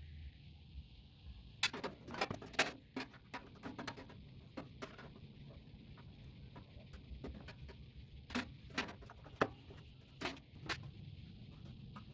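Irregular sharp clicks and light knocks of metal parts and hand tools being handled while a microwave oven is taken apart for scrap. They come in two bursts, one about two seconds in and one near the end, over a faint steady hiss.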